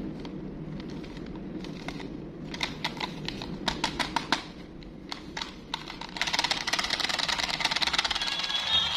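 Battery-operated walking cow toy: a few separate plastic clicks as it is handled, then about six seconds in its motor and gears start up with a fast, continuous clicking rattle.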